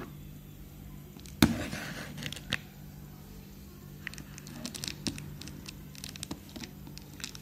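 Cardboard shipping box being handled: a sharp knock about a second and a half in, then scattered light taps and rustles of cardboard, over a steady low hum.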